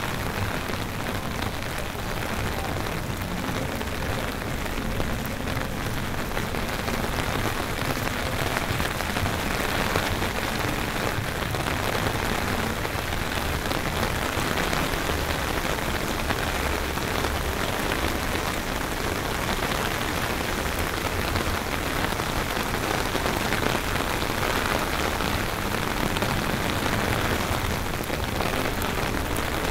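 Heavy hurricane rain falling steadily on pavement and hard surfaces, an even hiss of drops with a low rumble underneath.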